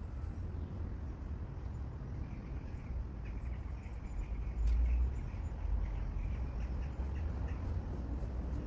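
Outdoor ambience: a low steady rumble that swells briefly about halfway through, with faint high chirps over it.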